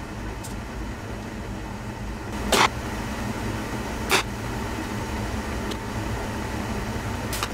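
Two sharp cracks about a second and a half apart, each a short traditional bow being shot, over a steady machine hum.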